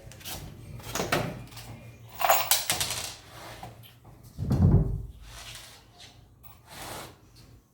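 A series of knocks and scrapes, with a quick rattle of clicks about two seconds in and a heavy thud about four and a half seconds in.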